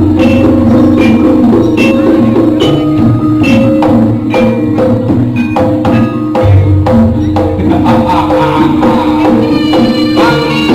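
Live jaranan music from a gamelan-style ensemble: struck metallophone notes in a fast repeating pattern over sharp percussion strokes.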